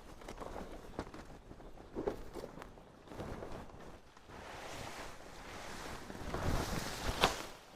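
Rustling with scattered light knocks, growing louder about five seconds in, with a sharp click near the end.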